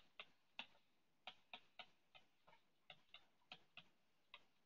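Faint, uneven clicks of a stylus tip tapping on a tablet's glass screen during handwriting, about three a second.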